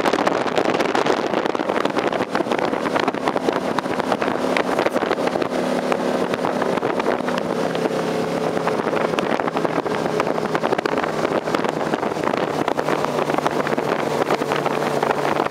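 Four Winns 221 Liberator sterndrive runabout underway at cruising speed: a steady engine drone under rushing wind and water noise. The engine note eases a little lower near the end.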